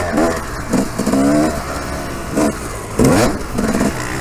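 Motocross dirt bike engine revving up and dropping back several times as the rider works the throttle around the track.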